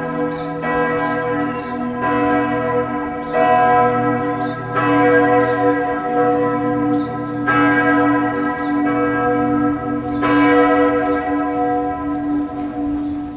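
Church bells of the St. Andreas parish church pealing: several bells at different pitches strike again and again, about once every second or so, each stroke ringing on under the next.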